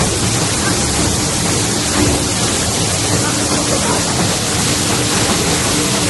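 HDPE pipe shredding and washing line running: a loud, steady noise of machinery with a faint steady hum under it, as a length of pipe is conveyed into the shredder.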